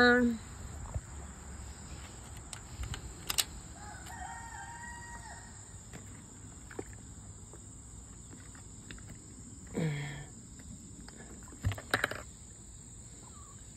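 A rooster crowing once, faintly, about four seconds in, with a brief falling call near ten seconds. A few sharp clicks near the end, as a wire-mesh pen is handled.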